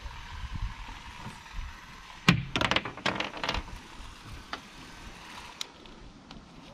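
Plastic clicking and rattling as a nozzle is twisted onto a knapsack sprayer's plastic lance by hand: one sharp click about two seconds in, a second of quicker clicks after it, then a few faint ticks.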